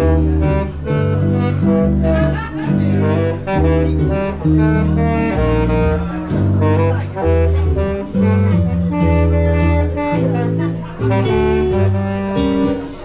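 Instrumental music with no singing: a melody of held notes over a bass line that changes note about once a second.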